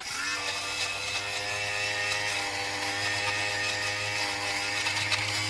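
Handheld electric Singer fabric shaver starting up, then running with a steady buzzing hum as its blades shave fuzz off a cotton sweatshirt.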